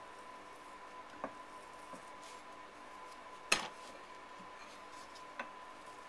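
A few light clicks and one sharper knock about halfway through as a soft clay pot and a wooden carving tool are handled while a footring is cut, over quiet room tone with a faint steady tone.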